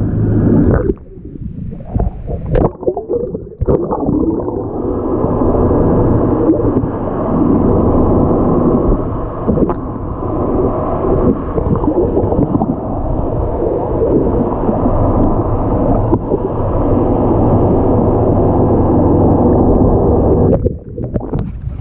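Muffled underwater rumble and rush of seawater around a camera held below the surface. It comes and goes for the first few seconds, then runs steady, with a brief drop near the end.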